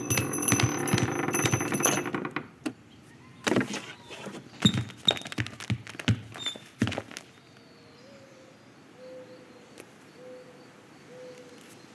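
Animated-film sound effects: a dense jangling clatter with ringing high tones for about two seconds, then a string of separate knocks and thuds, then a quiet stretch with a faint short tone repeating about once a second.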